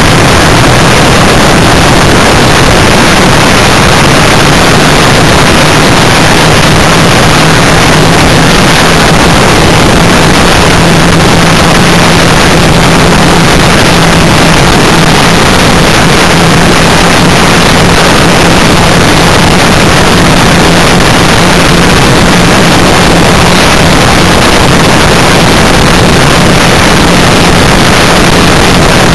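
Vehicle engine running at a steady speed under heavy wind and road noise on the microphone. The sound is very loud and distorted, with an unchanging low hum.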